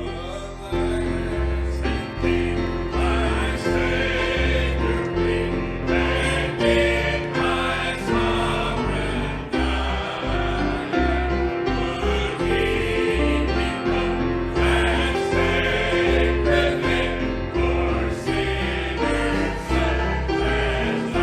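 Choir singing a gospel hymn with instrumental accompaniment and a bass line that changes note about once a second.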